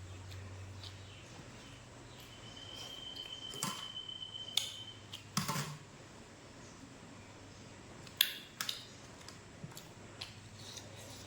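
Sporadic light clicks and knocks of dishes and utensils while someone eats a meal. A thin high tone holds for a couple of seconds near the middle.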